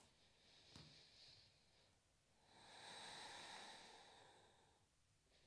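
Faint breathing during a yoga pose: a short breath about a second in, then one longer, slow breath from about two and a half seconds to nearly five.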